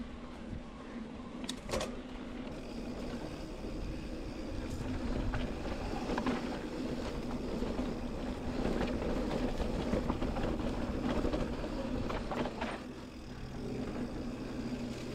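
Specialized Turbo Levo SL e-mountain bike riding a rocky dirt singletrack: tyres rolling and crunching over dirt and stones, with sharp knocks and rattles from the bike over rough patches, a steady low hum, and wind on a chest-mounted camera mic.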